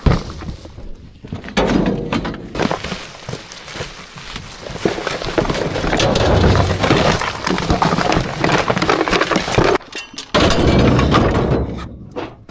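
Thin black plastic trash bag rustling and crinkling as it is rummaged through in a plastic tote, with small items clicking and clinking together.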